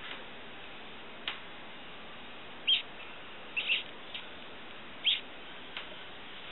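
A live feeder mouse squeaking, about half a dozen short high squeaks at irregular intervals.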